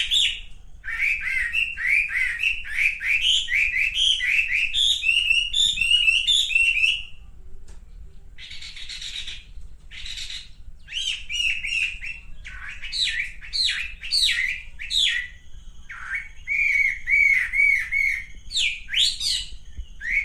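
Male wambi singing: fast runs of short, rising, chirpy notes repeated in phrases, with brief pauses between them, over a faint steady low hum.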